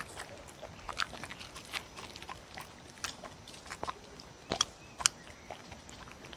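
A dog chewing and licking up a soft piece of sweet-potato honey cake: irregular wet mouth clicks and smacks, with two louder clicks about two-thirds of the way through.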